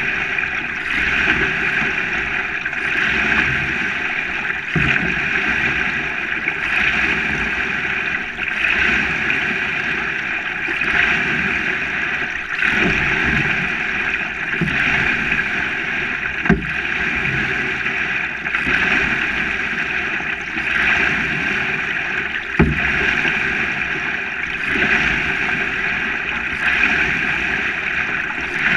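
Water hissing and splashing along the hull of a single-blade sprint canoe being paddled, swelling with each stroke about every two seconds. A few sharp knocks stand out from it.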